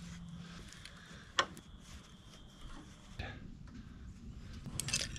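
Faint scattered clicks and light taps of brass rivet rods and wooden knife-handle scales being handled and fitted together, with one sharper click about a second and a half in.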